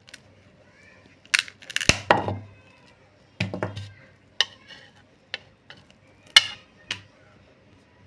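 Irregular knocks and clinks of a bowl and utensil being handled while bel fruit (wood apple) pulp is worked by hand. There is a cluster of sharp clatter about a second and a half in, another burst near the middle, then single knocks every second or so.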